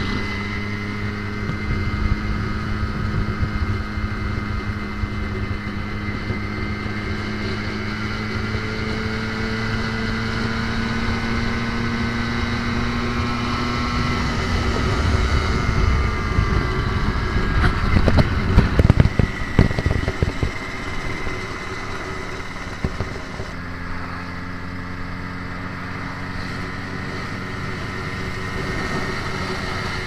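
Two-stroke motorcycle engine cruising at about 70 km/h with a steady, quiet buzz. Wind rumble and buffeting on the microphone grow louder through the middle.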